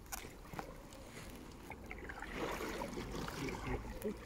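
Quiet splashing and dripping from a kayak paddle dipping into the river, with a few faint knocks near the start and end.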